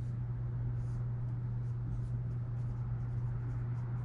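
Dry-erase marker drawing and writing on a whiteboard: a series of short, faint squeaky strokes over a steady low hum.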